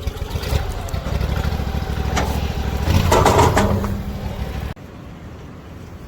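An engine running steadily with a low rumble, louder for a moment about three seconds in, then cutting off abruptly near the end.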